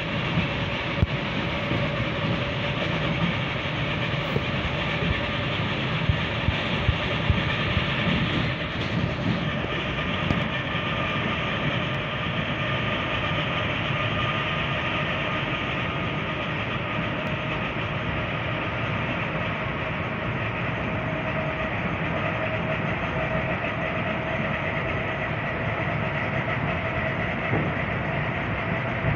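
Electric commuter train running: a steady rumble of wheels on rail with a motor whine that slowly rises in pitch, and a few sharp clicks from the track in the first several seconds.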